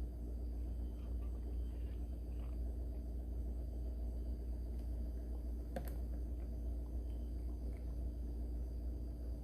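Motor oil being poured from a bottle into the engine's oil filler, over a steady low hum. A single sharp click comes about six seconds in.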